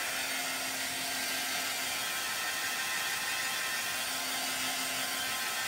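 Handheld hair dryer running steadily, blowing air to dry wet chalk paste on a silkscreen transfer, with a faint hum that comes and goes.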